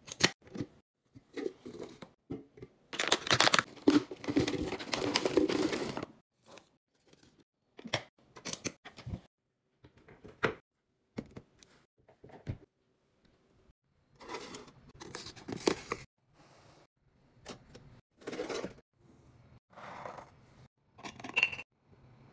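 Handling noises from kitchen containers and lids: a string of short clicks and taps, with a longer stretch of rustling noise from about three to six seconds in.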